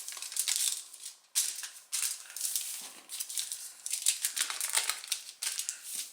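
Aluminium foil crinkling and crackling as it is folded by hand, in irregular spells with short pauses.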